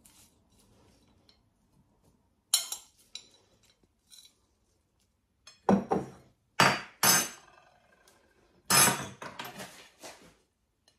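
Metal serving spoon clinking and scraping against a ceramic plate as food is served: a single clink, then two loud clusters of clinks, the second half of the way through and again near the end.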